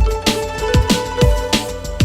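Electronic background music with a steady beat: a deep kick drum about twice a second under crisp percussion and a synth melody.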